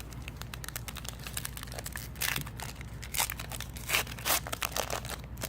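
A trading-card pack wrapper being torn open and crinkled by hand: a dense run of crackles with several louder rips.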